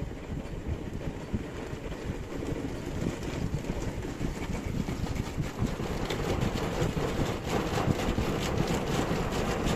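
Rotating brushes of an automatic car wash scrubbing a car's windshield under water spray, heard from inside the car: a steady rumbling swish that grows gradually louder, with a dense patter of bristle and water hits on the glass in the second half.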